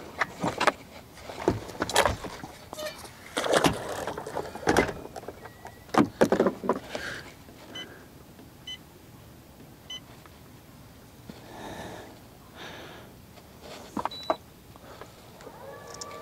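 Knocks, clicks and rustling of fishing gear being handled on a bass boat's front deck, irregular and uneven in loudness. Three short faint beeps come around the middle.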